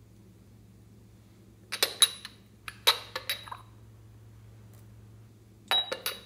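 Hard lids of small novelty containers clicking and clinking as they are pulled open and handled: three short clusters of sharp clicks with a brief ring, about two, three and six seconds in.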